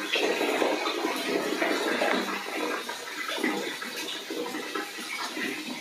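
Running water splashing steadily into a basin or tub, easing a little after about three seconds.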